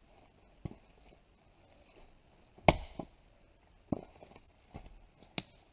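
Double-bit axe splitting rounds of straight-grained arbutus firewood: a series of separate sharp chops, the loudest a little under halfway through with a brief ring after it.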